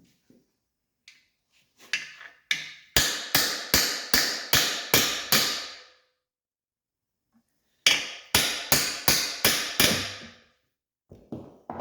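Hammer driving a bolt-extractor socket onto a stripped Phillips screw head: a few light taps, then a quick run of about seven blows, a pause of about two seconds, and another run of about six blows.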